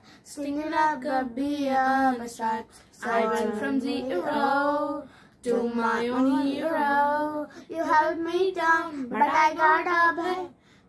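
Girls singing a song without accompaniment, in sung phrases with short breaks between them.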